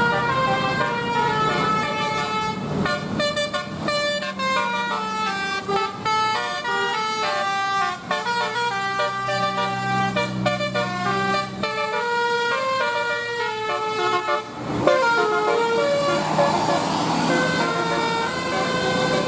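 Bus telolet horn, a Basuri multi-tone air horn, playing a tune of quick, stepping notes, with a brief break about fifteen seconds in before it plays on.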